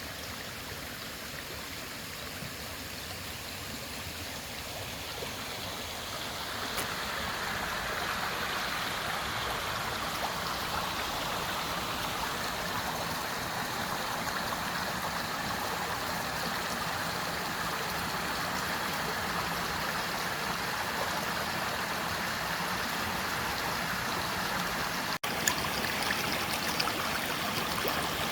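Mountain valley stream flowing over rocks: a steady rush of water that grows louder a few seconds in, with a brief cut in the sound near the end.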